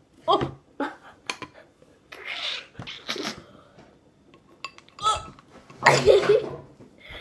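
Girls eating ice cream topped with chilli sauce, tomato sauce and pepper, making short gagging, coughing and groaning noises and breathing hard. The loudest groan comes about six seconds in.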